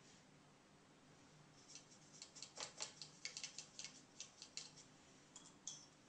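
A faint, quick, irregular run of light, crisp clicks and scratches, starting about a second and a half in and bunched over about four seconds.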